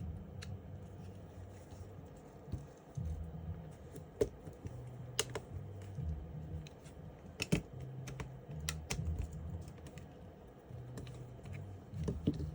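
Small hard clicks and taps of Glock pistol frame parts being handled and fitted together, a few at irregular intervals, over a low uneven hum.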